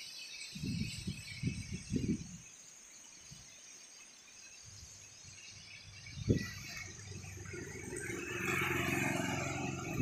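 Strong, gusty wind buffeting the microphone in irregular low rumbles, with a louder whooshing gust building about eight seconds in. There is a single thump about six seconds in.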